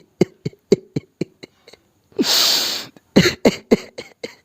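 Vocal beatboxing: quick, evenly spaced mouth beats at about four a second, broken about two seconds in by a loud hiss lasting under a second, then the beats again.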